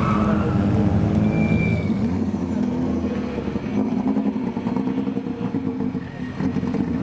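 Competition car engine running hard on a slalom course, its pitch shifting with the throttle; it fades somewhat past the middle, then picks up again near the end.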